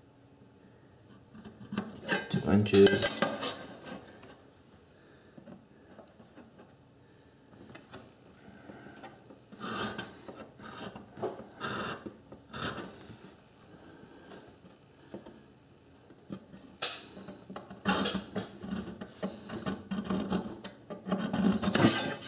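A steel scriber scratching layout lines into the face of an upside-down round metal pan in several short runs of strokes, with a steel rule shifted and clinking on the metal between them.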